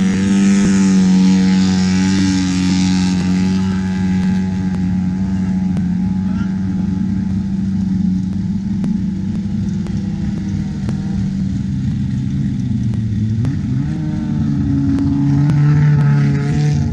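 Turbocharged diesel engine of a long-tail racing boat running hard at high revs, its note holding steady, then dropping about three-quarters of the way through and picking up again. The boat is underway at speed, with the hiss of rushing water and spray under the engine, loudest in the first few seconds.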